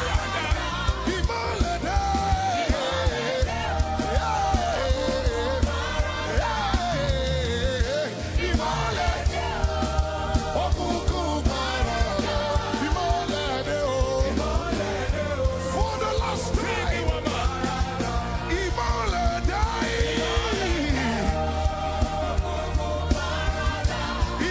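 Live gospel worship band playing with a steady beat and bass, while a lead singer sings long, gliding vocal runs over it.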